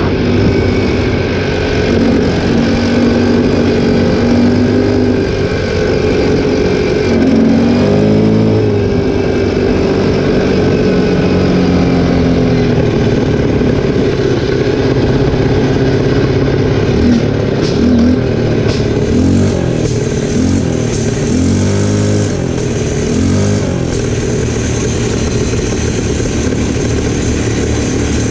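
Linhai 300cc ATV engine running while being ridden, its pitch rising and falling with the throttle about eight seconds in and several times in the second half, with a few light clicks in between.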